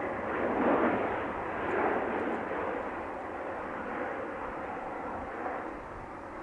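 Jet airliner engines heard across the airfield: a steady rushing noise that swells twice in the first two seconds, then holds even.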